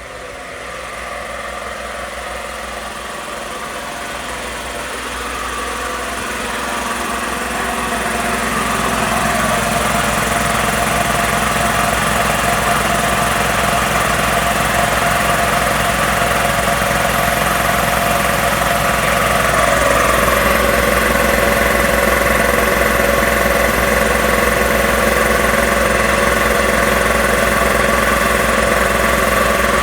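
Two-stage Magna Force air compressor started by its breaker, its motor and pump running steadily as it pumps up the tank toward cut-off pressure. It grows louder over the first ten seconds, and its tone rises about twenty seconds in.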